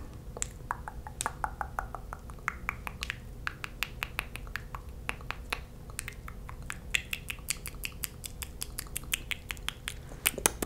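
Rapid irregular clicks from long fingernails tapping on a small plastic lip gloss tube right at the microphone, several a second and faster near the end, mixed with wet mouth clicks.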